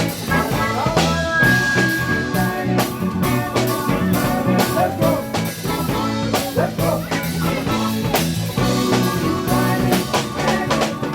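Upbeat band music with a steady drum-kit beat, bass, guitar and singing.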